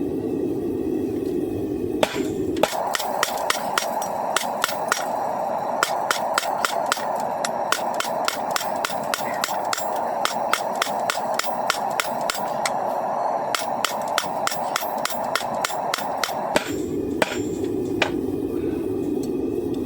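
Hand hammer blows on hot coil-spring steel at the anvil, a steady run of about two to three strikes a second that starts about two seconds in, pauses briefly, and stops shortly before the end. A steady rushing noise runs underneath throughout.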